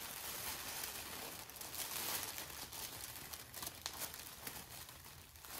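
Cosmetics packaging crinkling and rustling as it is handled and opened by hand, with a few sharper clicks.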